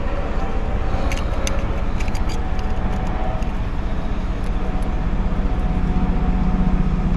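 A steady low engine rumble runs under a few light plastic clicks of wiring connectors being handled and matched up.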